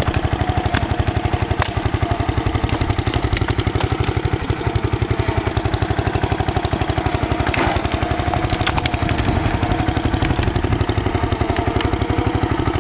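MTD 990 riding mower's engine running steadily at an even, rapid pulse, with a steady whine over it and a couple of light clicks about two-thirds of the way through.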